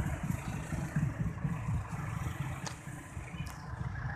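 Low rumble of a passenger train rolling away along the track, easing slightly about three seconds in, with two short clicks near the end.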